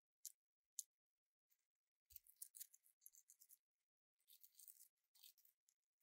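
Faint rattling and rustling of small electrolytic capacitors being handled, in short bursts, after two light clicks in the first second.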